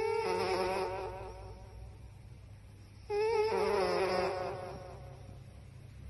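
A sleeping puppy whining into a microphone held at its nose: two long, quavering whines, one at the start and another about three seconds in. Each starts on a held note and then wavers up and down.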